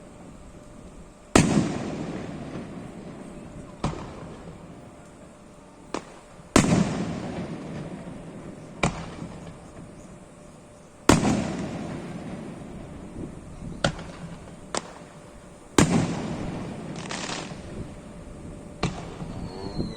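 Aerial fireworks shells bursting. Four big booms come about every four to five seconds, each trailing off in a long rumbling echo, with smaller sharp cracks in between.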